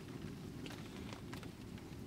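Quiet hot-tent ambience: a faint steady hiss with a few soft ticks.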